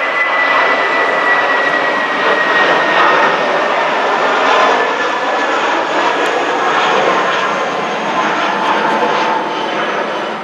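Twin-engine jet airliner of the Airbus A320 family (Eurowings) climbing out after takeoff: a steady jet engine roar with a high whine that slowly drops in pitch as it passes.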